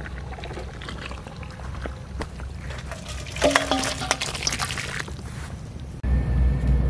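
Chicken curry with potatoes tipped out of a metal wok into a steel bowl: a wet, sliding pour with metal scraping and ringing against metal, loudest a little past the middle. Near the end a low steady rumble starts.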